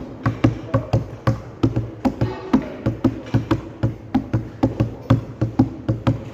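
Repeated light knocking, about three knocks a second in a slightly uneven rhythm.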